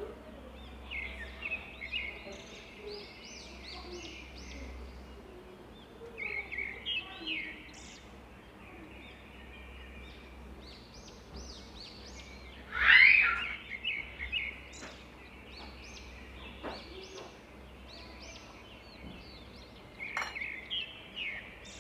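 Small birds chirping over and over, short high chirps in quick runs, with one louder sound about thirteen seconds in. A few faint clicks, like a spoon touching a glass bowl, come between them.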